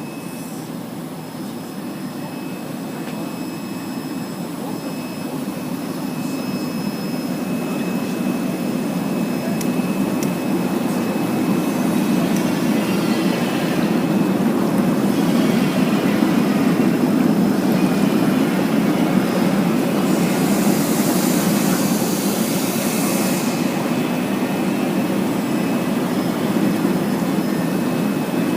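Fruit and vegetable washing machine running, its motor and churning water making a steady rushing noise that grows gradually louder, with a faint steady whine above it and a burst of hiss about two-thirds of the way through.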